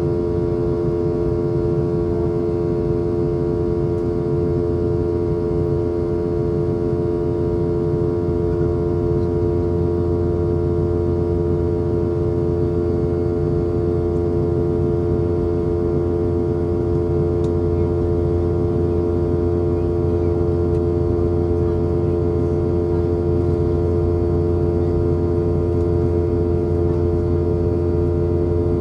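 Boeing 717 cabin noise in flight: the rear-mounted Rolls-Royce BR715 turbofans and the airflow make a steady roar, with a strong held hum of several tones over it.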